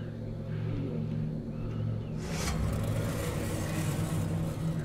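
Car engine running steadily at idle, a low even hum, with a short rushing, rustling noise about two seconds in.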